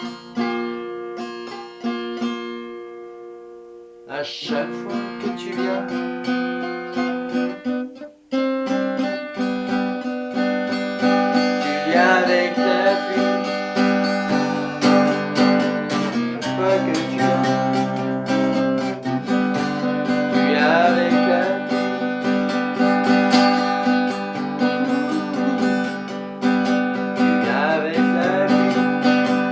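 Acoustic guitar playing an instrumental passage of a chanson, chords ringing out. A chord fades away over the first few seconds, a new one is struck about four seconds in, and the playing grows fuller and louder after a short break near eight seconds.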